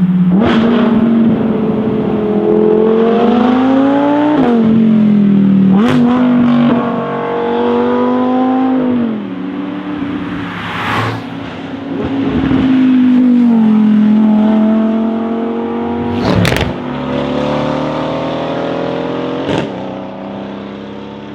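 Audi R8's V10 engine through a Capristo straight-pipe exhaust, accelerating hard with the revs rising and snapping down at several quick upshifts, each marked by a sharp crack. It eases off in between, then pulls again and fades away near the end.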